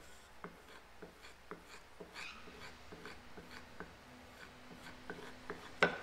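Steel knife blade stropped on rough-out leather loaded with polishing compound: short dry scraping strokes, about two a second, with one sharper click near the end.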